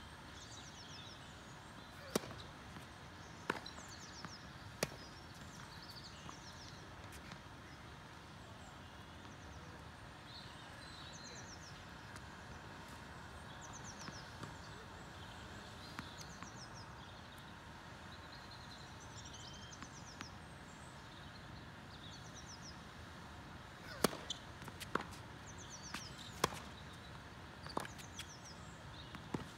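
Tennis ball struck by rackets and bouncing on the court in a rally: sharp pocks about a second or so apart, three near the start, then a long gap, then a serve and a run of quick hits near the end.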